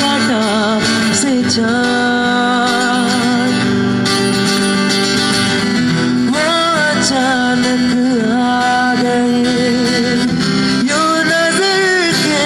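Male vocalist singing long, held, wavering notes with ornamented runs into a microphone, accompanied by a strummed acoustic guitar, amplified live.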